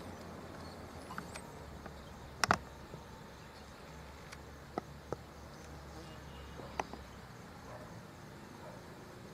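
Quiet outdoor ambience: a low steady hum under a few sharp clicks, the loudest a double click about two and a half seconds in, with faint high chirping.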